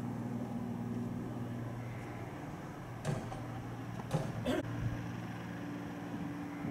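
A steady low mechanical hum, like a motor or engine running, whose pitch shifts slightly about five seconds in, with a few short knocks between about three and four and a half seconds in.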